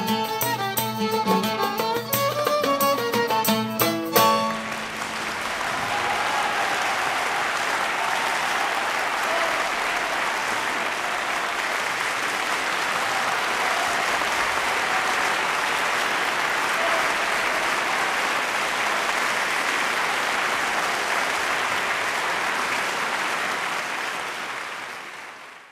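A traditional Greek folk song ends about four seconds in, and audience applause follows: a steady, dense clapping that fades out near the end.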